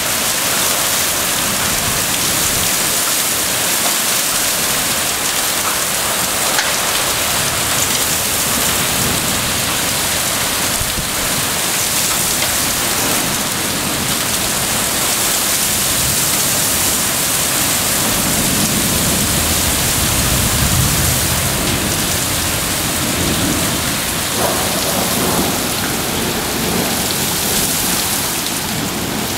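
Heavy rain pouring steadily onto pavement and roofs during a severe thunderstorm. Low rumbles of thunder come in during the second half.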